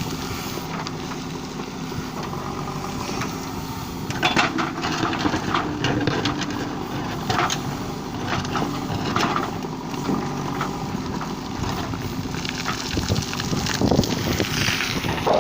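JCB 3DX backhoe loader's diesel engine running steadily, with irregular knocks and clanks from about four seconds in.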